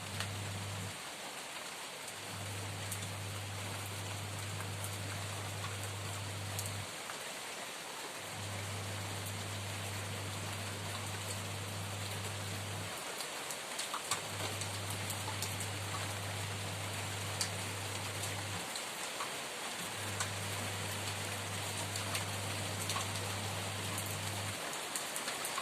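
Steady rain falling, an even hiss with scattered drop ticks. Under it a low steady hum stops and starts again every four to six seconds.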